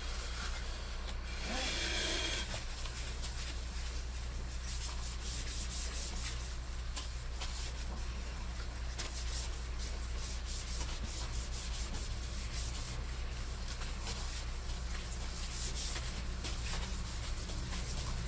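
Continuous scrubbing and rubbing on a laptop keyboard during cleaning with a liquid cleaner, a scratchy sound with many small ticks, over a low steady hum.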